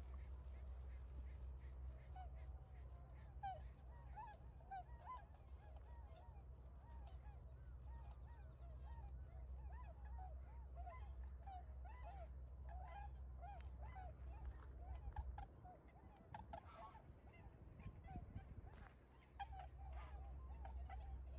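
A flock of Bewick's swans (tundra swans) calling continually, many short calls overlapping one another. A steady low rumble runs underneath.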